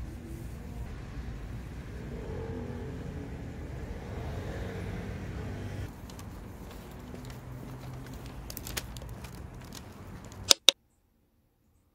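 Street ambience: a steady low rumble of road traffic. Near the end come a few crinkles from a plastic carrier bag and two sharp clicks, then the sound cuts off suddenly.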